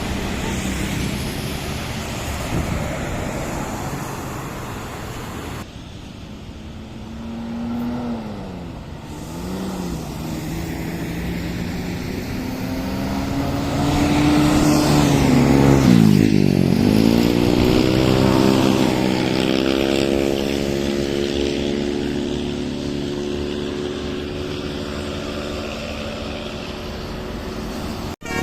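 A motor vehicle's engine revving and accelerating. Its pitch rises and falls a couple of times, then climbs steadily, dips sharply and recovers about halfway through as it shifts gear, then runs steadily while at its loudest.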